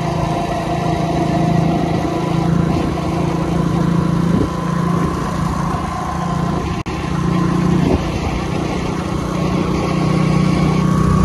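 Small two-wheeler engine running steadily at cruising speed, a constant hum with road noise. It drops out for an instant near the middle, and its pitch creeps up slightly near the end.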